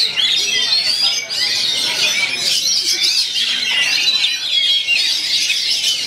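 Many caged oriental magpie-robins singing at once, a dense overlapping chorus of fast whistles, trills and chatter that never breaks.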